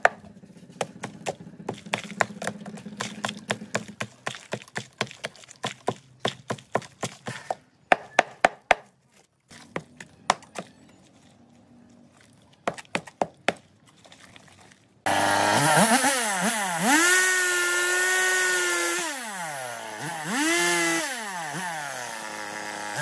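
A short hand blade chopping and prying at tree-stump roots, sharp knocks about two a second and then in scattered groups. About two-thirds of the way through, a two-stroke chainsaw starts running much louder, its engine revving down and up twice.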